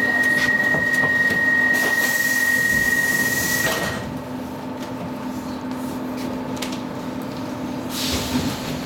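Stockholm Metro C14 car standing at a platform: a steady high door-signal tone sounds for about four seconds over a hiss and stops with a knock as the sliding doors work. A steady low hum from the car runs throughout, and a short hiss comes near the end.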